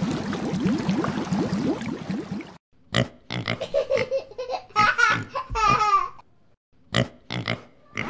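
A bubbling, splashing transition sound effect for the first two and a half seconds, which cuts off suddenly. Then a domestic pig gives a run of short grunts, with a longer, higher squeal about midway.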